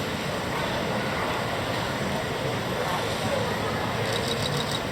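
Steady hubbub of a waiting crowd, many people talking indistinctly. A short run of quick light ticks comes near the end.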